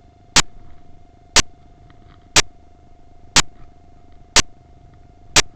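Sharp, evenly spaced clicks, exactly one a second, like a ticking clock or metronome, over a faint steady hum.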